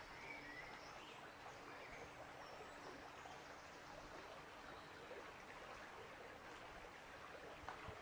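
Near silence: a faint, even background hiss of outdoor ambience, with a few brief, faint high chirps.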